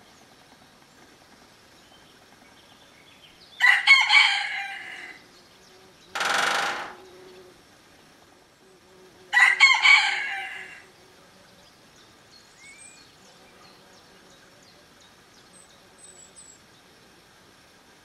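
Great spotted woodpecker drumming on a metal roof to proclaim its territory: two rapid rolls of knocks about six seconds apart, each ringing out and dying away over a second or so. A short rushing noise comes between the rolls, and faint bird chirps follow near the end.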